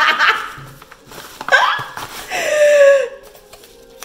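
Wordless vocal reactions from a person opening a gift: a short exclamation about a second and a half in, then a longer drawn-out one that slides down in pitch.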